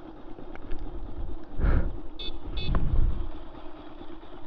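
Motorcycle engine running at low revs, with low rumbles swelling twice and two very short high-pitched chirps about halfway through.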